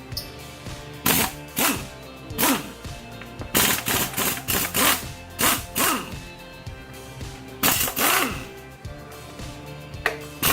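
Impact wrench fired in about ten short bursts, each winding down in pitch after the trigger is released, hammering at a stubborn bolt. Background music plays underneath.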